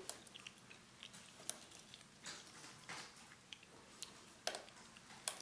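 Irregular small metallic clicks of a lock pick and tension wrench working the pins inside an Abus 83CS/55 padlock's pin-tumbler cylinder during single-pin picking, about half a dozen sharp ticks spread unevenly, the louder ones about one and a half seconds in and near the end.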